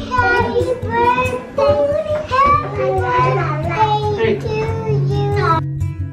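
A small child singing, with a woman's voice alongside. Music comes in underneath partway through, and near the end the voices cut off suddenly, leaving strummed guitar music.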